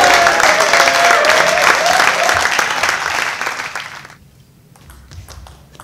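Spectators applauding and cheering after a table tennis point, with shouting voices in the crowd; the applause dies away about four seconds in.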